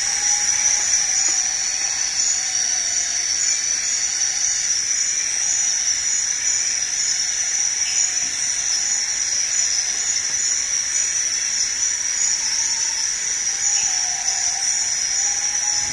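Rainforest insect chorus: a steady, unbroken high-pitched drone with a hissing wash beneath it.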